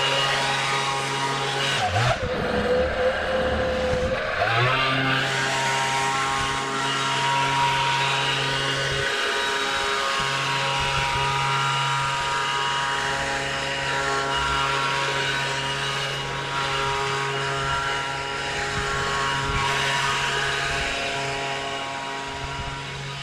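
John Deere 648R zero-turn mower's engine running steadily under load with its deck blades spinning. The engine note shifts and wavers briefly about two seconds in, then settles back to a steady run about five seconds in.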